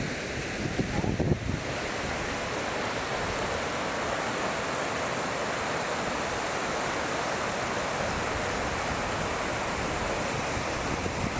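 Steady rush of falling water from a waterfall, with a brief low gust of wind on the microphone about a second in.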